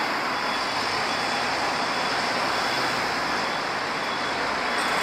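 Steady street traffic noise from passing road vehicles.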